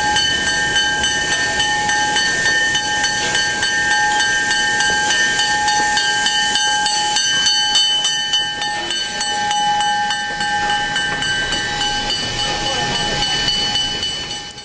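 A steam locomotive venting steam: a steady hiss with several high, steady whistle-like tones over it. It cuts off abruptly at the end.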